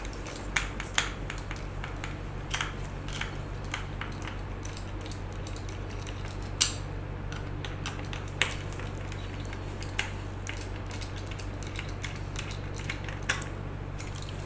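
Small screwdriver clicking and scraping on the battery-cover screws of a DR900 portable colorimeter as they are driven back in, in irregular light clicks, the sharpest about halfway through. A steady low hum runs underneath.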